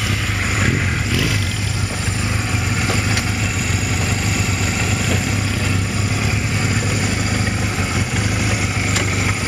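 Motorcycle engine running steadily with a low, even rumble.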